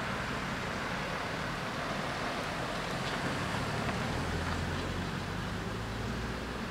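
Steady road traffic noise, with a low rumble swelling about four seconds in as a car passes.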